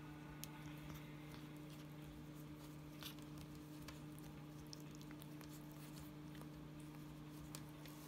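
Faint, scattered soft clicks and scuffs of a cat's claws and teeth on a feather wand toy against a wooden tabletop, the clearest about three seconds in, over a low steady hum.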